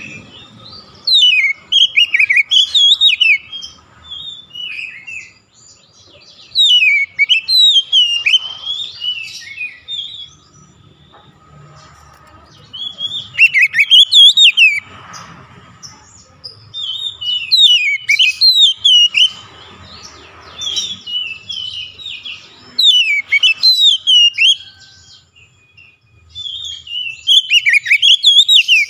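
Male oriental magpie-robin singing in loud bursts of rapid whistled phrases with fast up-and-down glides, about six bursts separated by pauses of one to three seconds.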